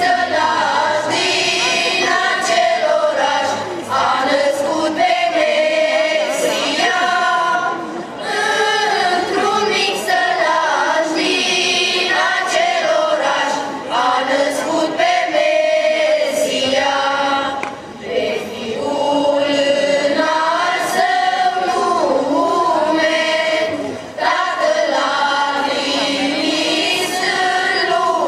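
Romanian Christmas carol (colindă) sung by a choir of mostly female young voices, in sung phrases with short breaks between them.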